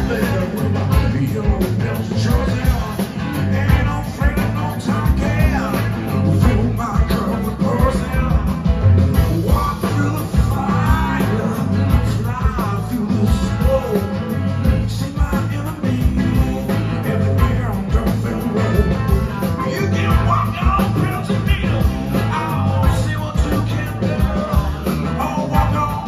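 Live band playing: electric guitars, bass guitar, drums and keyboards, with a man singing lead at the microphone.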